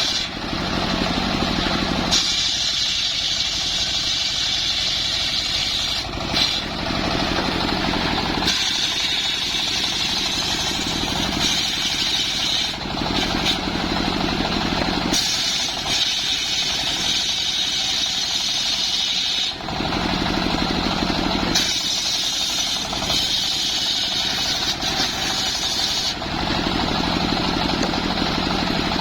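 Engine-driven wood saw running, its sound switching back and forth every few seconds between a high whine and a lower, heavier drone.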